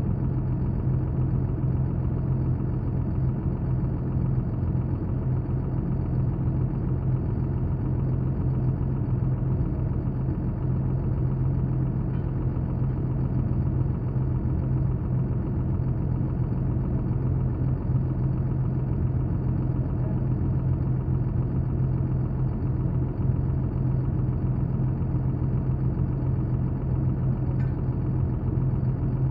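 Diesel engine idling steadily, a constant low drone with no change in speed.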